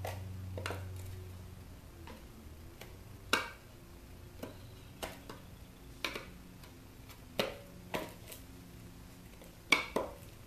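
Scattered sharp metallic clicks and clinks of a screwdriver prying and tapping at the metal base plate of an electric hot-water pot, with the pot being handled. The clicks come irregularly, a louder one about a third of the way in and another near the end.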